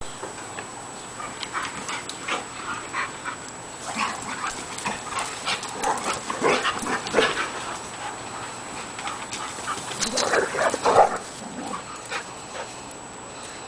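Two dogs, a Shar Pei and a collie, play-wrestling, with many short dog vocalisations. They are busiest about six to seven seconds in and again around ten to eleven seconds in.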